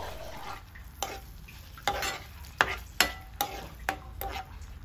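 Steel spoon stirring a watery chilli sauce in a non-stick frying pan, clinking against the pan about seven times with short ringing knocks, over a low sizzle of the sauce cooking.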